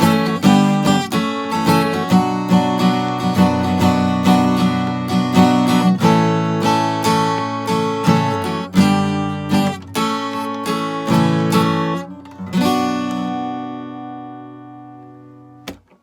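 Acoustic guitar strumming the closing chords, ending on a final chord that rings and fades away over about three seconds, then a brief knock just before it goes silent.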